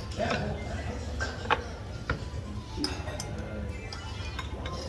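Metal utensils clinking against plates and a pot, a handful of short sharp clinks with the loudest about a second and a half in, over background music.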